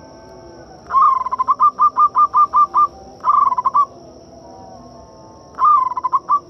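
Zebra dove (perkutut) cooing in three phrases. Each phrase opens with a longer note and runs into a fast string of short, clipped coos, the first about nine notes long. The second and third phrases are shorter.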